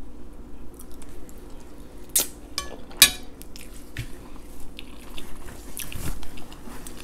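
Close-up mouth sounds of a person eating spaghetti with meat sauce: chewing with small wet smacks and a few sharp clicks, the loudest about three seconds in.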